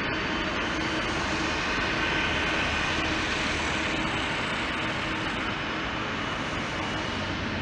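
Boeing 747 jet engines running at taxi power: a steady rushing jet noise with faint whining tones through it.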